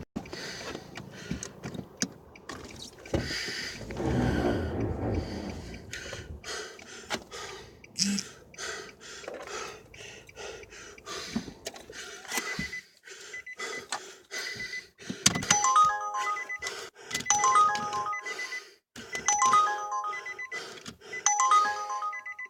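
A mobile phone ringtone playing a short chiming melody that repeats about every second and a half, starting about two-thirds of the way in. Before it, clicks and rustling from handling and movement, louder for a couple of seconds near the start.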